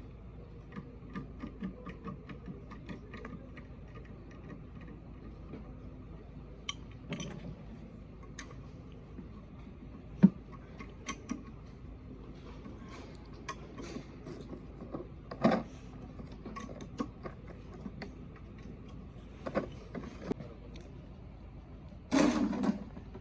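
Hand work on diesel engine parts: a run of quick, regular metallic ticks, then scattered metal clinks and knocks, the sharpest about ten seconds in, and a brief clatter of metal parts near the end, over a faint steady hum.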